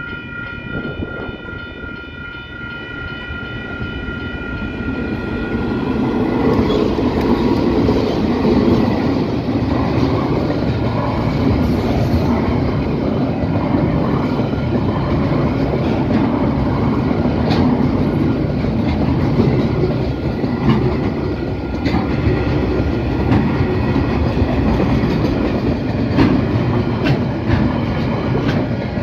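Level crossing bells ringing as a freight train hauled by two GE DX-class diesel-electric locomotives approaches, then the train's rumble rises and drowns the bells about five seconds in. Freight wagons then run past close by, with a steady clickety-clack of wheels over the rail joints.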